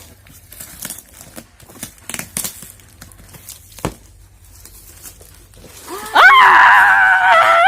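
Soft rustling and small clicks of gift packaging being handled, then, about six seconds in, a loud, high-pitched, wavering squeal of excitement from a female voice.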